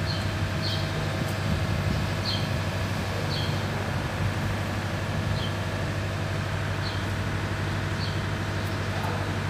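Steady low mechanical hum, like an engine or machine running. Several short high chirps come at uneven intervals over it.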